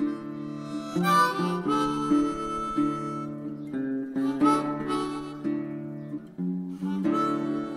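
Background music: a harmonica playing held chords that change every half second or so, over guitar.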